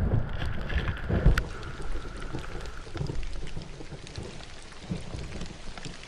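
Skis ploughing through deep powder snow, picked up by a body-mounted action camera as an uneven rumbling with wind on the microphone. Irregular thuds run through it, the sharpest about a second in.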